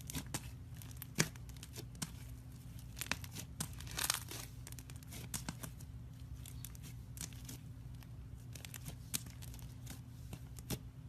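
Iceberg slime being pressed by hand, its dried crust cracking and crinkling in irregular sharp crackles, over a low steady hum.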